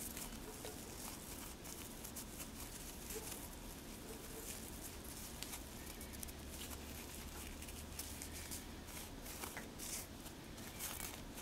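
Faint rustling and crinkling of seam binding ribbon being wrapped around the fingers and pinched into a bow by hand, with a few slightly louder rustles near the end.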